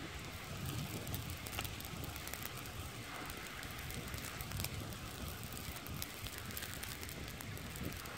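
Open flames burning the front of a plastic toy car: a steady rush with scattered small crackles and pops.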